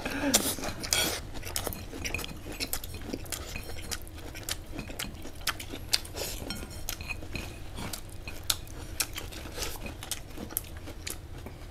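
Utensils tapping and clinking against dishes, a scatter of light, irregular clicks.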